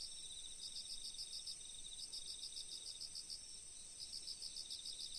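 Faint insect chorus of chirping crickets: short bursts of rapid chirps, recurring with gaps, over a steady high-pitched trill.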